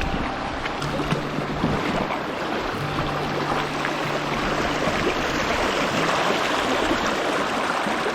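Flowing stream water, a steady rushing noise, with background music of held low notes coming and going.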